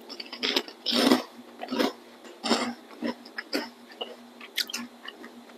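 Mouth chewing a crisp puffed snack cracker: a string of about seven separate crunches, one or two a second.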